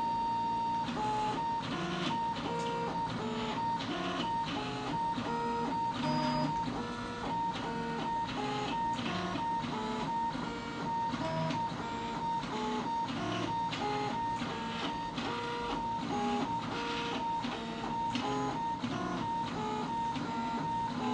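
Delta 3D printer's stepper motors whining through a run of short moves, the pitch jumping every fraction of a second over a steady high whine. The printer is homing and then probing the bed at its auto-leveling points.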